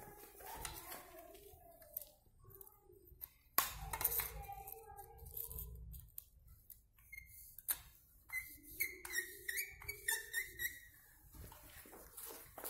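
Faint voices in the background, with scattered light clicks and knocks.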